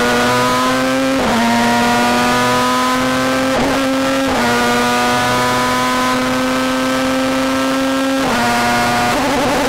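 Star Mazda race car's rotary engine heard onboard under power, its note climbing slowly in pitch down a straight. The note breaks briefly about a second in, again for under a second around four seconds in, and drops near the end.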